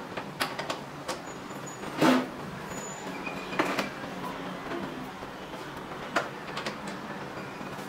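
Clicks, knocks and a short scrape from welding cable connectors being pushed and twisted into the welder's front-panel sockets and the cables being handled, over a faint steady low hum. The loudest is a brief rattle about two seconds in.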